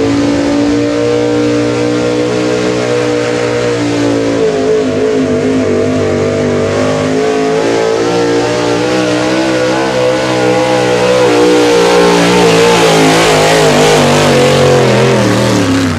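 Pickup truck's engine at full throttle, pulling a weight-transfer sled down a dirt pulling track under heavy load. It holds a high, fairly steady pitch with small wavers, gets louder about two-thirds of the way in, and drops in pitch near the end as the truck comes off the throttle.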